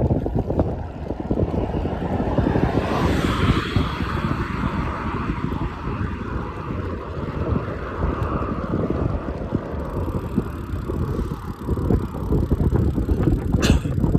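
Wind buffeting the microphone on a moving bicycle: a dense, uneven rush of low rumbling noise. One sharp click near the end.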